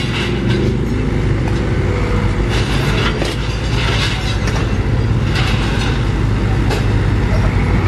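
Heavy diesel engines running steadily: a SANY excavator demolishing a brick building and a crane truck pulling in close, with scattered knocks and clatter of breaking debris.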